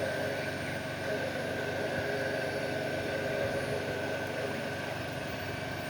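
Dual-station PCB soldering machine running with a steady mechanical hum and a constant high whine.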